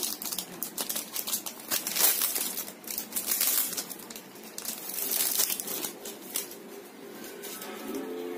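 Plastic shrink-wrap on a music album crinkling as the album is handled, in irregular crackles.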